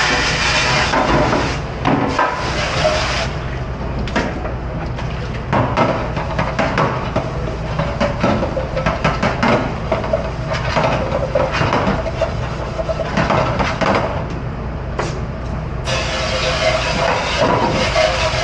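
Commercial pre-rinse spray nozzle hissing at full pressure. It shuts off about three seconds in, and stainless-steel hotel pans clank and scrape on the steel dish-pit counter. The spray starts again near the end, hitting into a steel pan, with a steady low hum underneath throughout.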